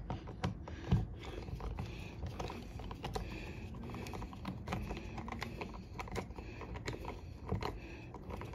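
Small irregular clicks and taps of a deadbolt's metal parts and mounting screws being handled and turned while the lock is fastened to a door, with two louder knocks near the start and about a second in.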